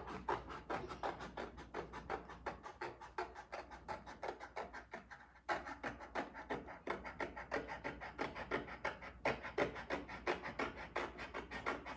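Quick, even scratching strokes, about six a second, from the thick edges of a homemade volcano model being trimmed, with a short break about five seconds in.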